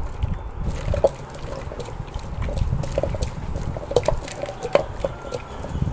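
Traditional hand-turned stone wet grinder working wet coconut paste: wet squelching and scraping of stone through the paste, with irregular sharp stone knocks and taps all through.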